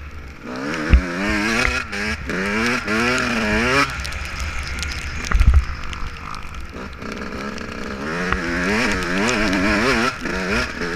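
2016 Yamaha YZ125 two-stroke single-cylinder dirt bike engine revving up and down, its pitch climbing and falling again and again with throttle and gear changes. It eases off for a few seconds in the middle before pulling hard again. A couple of low thumps are heard, one about a second in and another around the middle.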